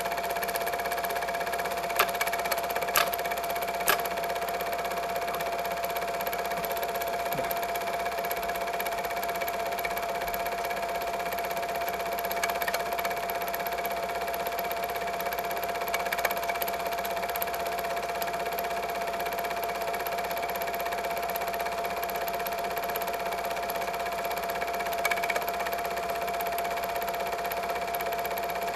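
Double 8 film projector running steadily: an even mechanical whir with a constant hum, and a few sharp clicks, three of them about a second apart early on and one more near the end.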